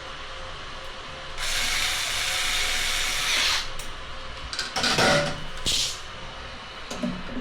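Power screwdriver working screws: one run of about two seconds, then two short bursts near the end.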